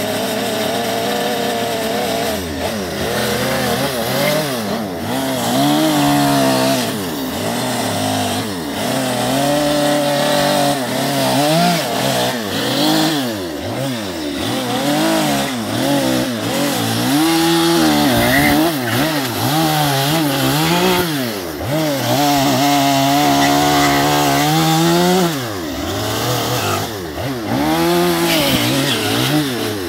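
Two-stroke chainsaw carving western red cedar, its engine revved up and down over and over as the throttle is squeezed and eased between cuts, at times held at high speed for a few seconds.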